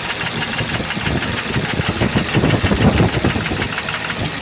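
Tata Cummins BS6 diesel truck engine idling with a rapid, steady knocking, a little louder in the middle. The mechanic suspects a connecting rod bearing or bush problem, since swapping the injectors did not cure the noise.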